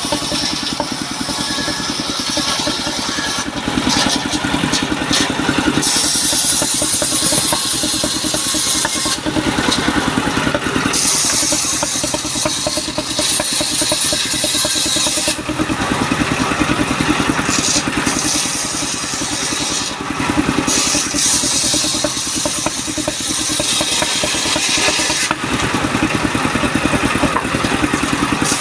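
Sawmill machine's engine running steadily, with a high hissing noise that comes and goes in stretches of a few seconds.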